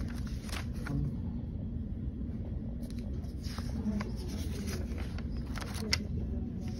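Paper pages of a spiral notebook being turned by hand: several short rustles and swishes, over a steady low hum.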